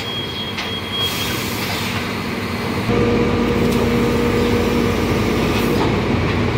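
Rear-loading garbage compactor truck running at the rear hopper; about three seconds in the sound steps up and a steady hum comes in, as the hydraulic packer is set working.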